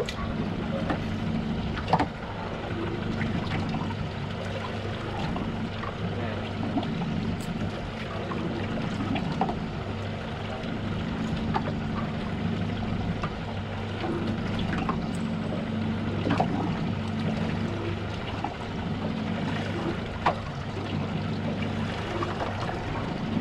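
Boat engine running steadily with a low hum, water sloshing against the hull, and a few sharp knocks, the loudest about two seconds in.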